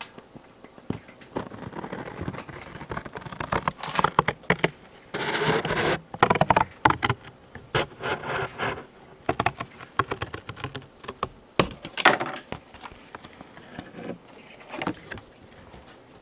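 Hands pulling apart a cardboard Funko Pop box to separate its bottom panel: an irregular run of crackles, scrapes and taps, with a longer, denser stretch of noise about five seconds in.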